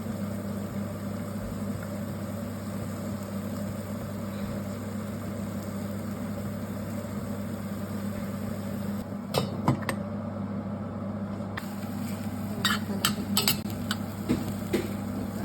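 Steady low electric hum of a kitchen appliance, with metal utensils clinking against a pan a few times past the middle and in a quick cluster near the end.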